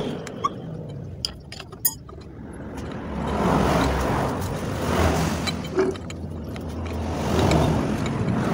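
A few light metal clinks of a wrench against the differential's bearing-cap bolts, then a motor vehicle's low rumble swells in about three seconds in and carries on.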